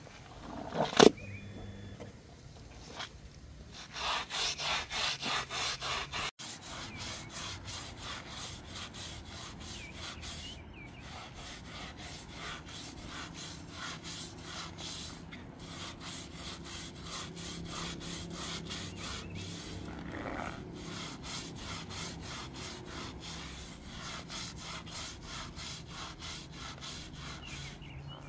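Stiff hand scrub brush scrubbing a wet, soapy rug in quick back-and-forth strokes, about three to four a second. A sharp knock about a second in.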